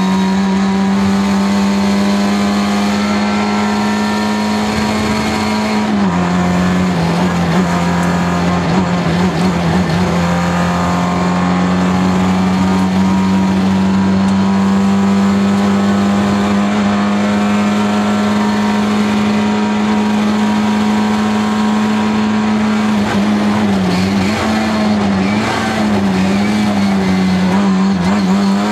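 Rally car engine running hard at high revs, heard from inside the cabin. Its pitch steps down at a gear change about six seconds in, holds steady for a long stretch, then dips and rises a few times near the end.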